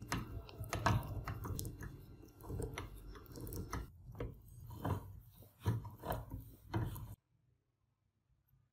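Sticky, irregular clicking and crunching of thick grease being worked into the hand drill's metal gears, the teeth squelching through the fresh grease. It stops suddenly about seven seconds in.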